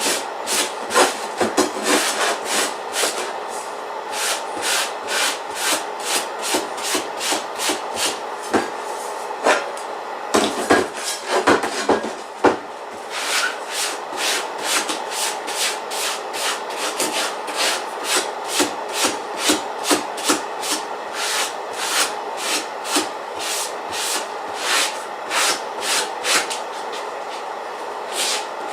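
A brush scrubbing a steel circular saw blade in quick back-and-forth strokes, about two to three scrapes a second, with a short break about ten seconds in. It is cleaning rust and residue off the teeth after a vinegar soak.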